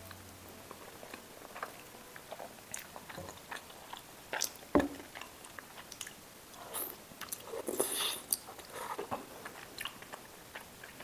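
Close-miked chewing and wet mouth sounds of a person eating, with scattered small clicks, a sharper thud about five seconds in, and a brief noisier crunching patch around eight seconds.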